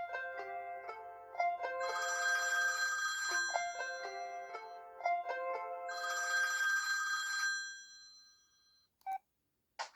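ZTE A431 phone playing one of its preloaded ringtones: a short melody played twice, dying away near the end, followed by a brief beep.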